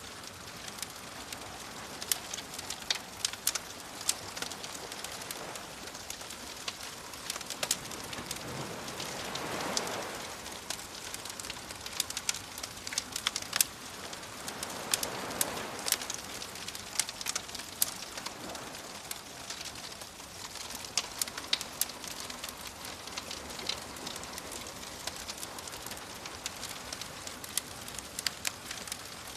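Wood fire crackling, with frequent sharp pops and snaps, over the soft wash of sea waves; two waves swell in and fade, about a third of the way through and again about halfway.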